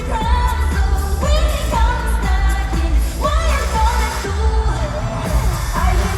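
Pop song with female singing over a heavy, steady bass, played loud through a concert sound system.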